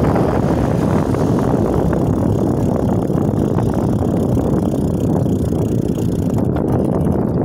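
Steady wind rumble on the microphone of a moving bicycle, mixed with the low rolling noise of the ride. The high end of the hiss drops away about six seconds in.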